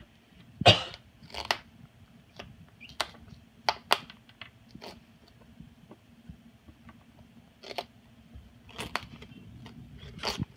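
Moluccan cockatoo chewing and shredding butternut squash with its beak: irregular sharp crunches and snaps, the loudest about a second in, with a short lull past the middle.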